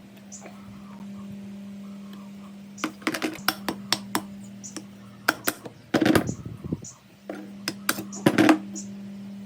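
Metal parts and tools clinking and knocking in quick clusters, the loudest strike about six seconds in, over a steady low hum.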